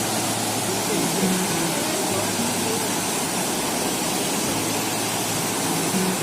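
Dhuandhar Falls on the Narmada River: a steady, dense rush of falling water.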